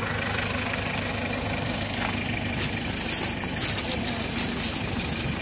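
A vehicle engine idling steadily, with patches of high hissing noise in the second half.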